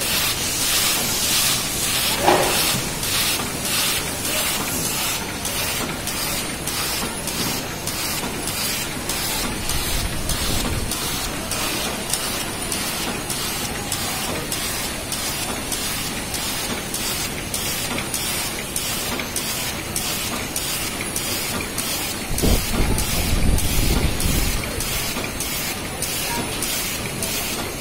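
Biscuit packing machine running, a steady hiss with a regular mechanical beat about twice a second. A louder low rumble comes in briefly near the end.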